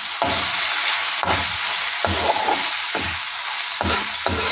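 Masala-coated mutton heart pieces sizzling in oil in a black wok. A slotted metal spoon stirs and scrapes them around in repeated strokes, roughly one every half second to a second. This is the bhuna stage, fried until the oil rises to the top.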